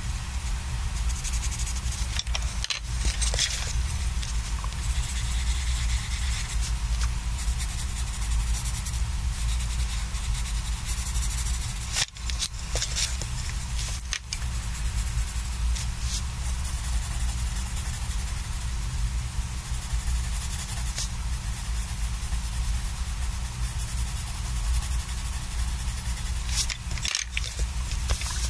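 Coloured pencil scratching on sketchbook paper in quick back-and-forth shading strokes, with two brief breaks about twelve and fourteen seconds in, over a steady low hum.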